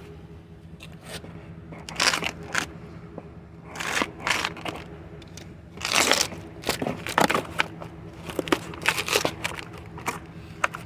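Packaging being handled, crinkling and crunching in irregular bursts, over a faint steady hum.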